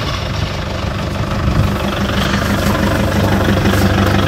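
A motor running steadily with a low, rapidly pulsing hum.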